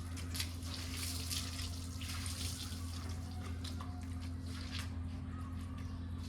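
Water running from a tap and splashing, with a steady low hum beneath it.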